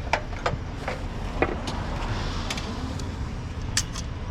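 Scrap metal being picked through by hand: scattered light clinks and knocks over a steady low rumble.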